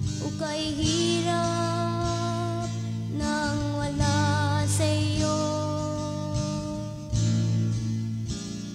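Gospel band music: guitar, bass, keyboard and drums playing under long, held melody notes with vibrato.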